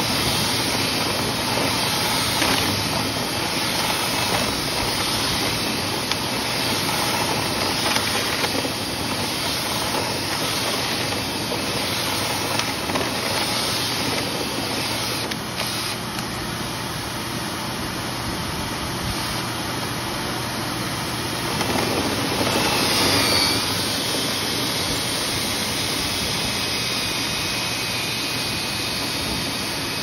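Steady whir of a dust-collection vacuum and a cordless drill spinning a rotary brush rod through the dryer vent duct, clearing built-up lint. A brief squeal comes about three-quarters of the way through.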